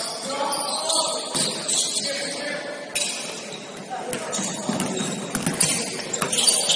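Gym ambience during a basketball game: indistinct voices of players and onlookers echoing in a large hall, with scattered sharp knocks from the ball on the court.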